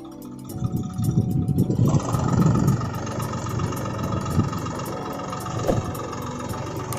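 Tractor engine sound, a steady rough rumble that starts about half a second in as the music ends and grows louder about a second in.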